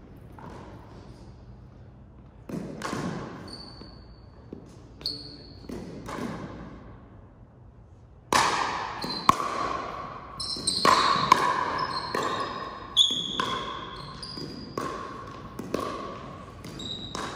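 Ball game play in a gymnasium: a run of sharp ball hits and thuds with short high squeaks, echoing in the large hall. It grows louder and busier about eight seconds in.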